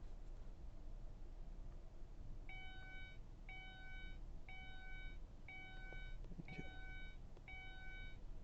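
Electronic beep repeating six times, about once a second, each tone held for most of a second.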